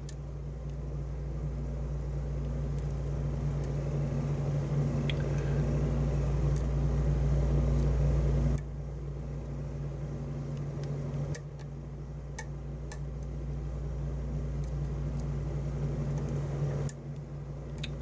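Steady low hum that slowly swells and drops abruptly a few times, with a handful of faint clicks from a steel pick working the pins of a pin-tumbler challenge lock under tension.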